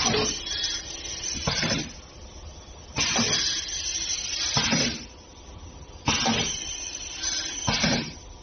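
Pneumatic back-sealing liquid sachet packing machine running through its cycle: a sharp mechanical stroke about every three seconds, each followed about a second and a half later by a second, shorter burst of noise, as the air cylinders work the sealing jaws.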